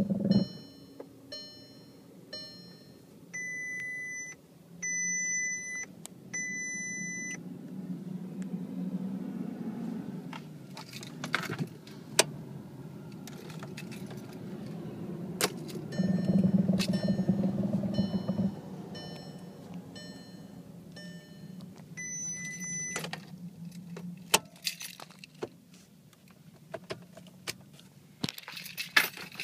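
A 2011 Volkswagen Tiguan's instrument-cluster warning chime sounds over and over: short beeps about every half second, with three longer tones a few seconds in and another near the end. Under it is the low hum of the running car and the jingle and clicks of the ignition keys swinging. The warnings go with a power steering failure.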